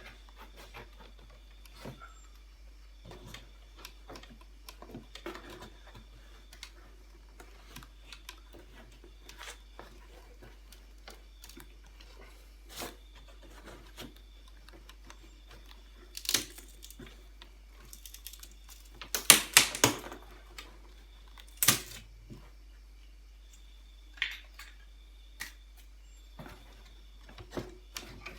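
Scattered clicks, taps and knocks of a wooden packing crate being worked open by hand, with a few louder bursts of knocking and rattling in the second half.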